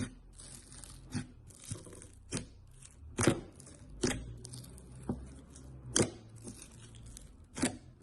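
Slime being pressed and squished by hand, giving sticky wet pops and crackles, roughly one sharp pop a second, over a steady crinkly hiss.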